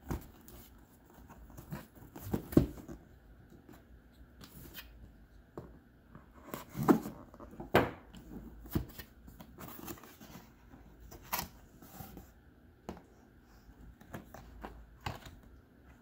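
Hands handling and opening a cardboard box: scattered knocks, scrapes and rustles of cardboard and paper, loudest about two and a half, seven and eight seconds in.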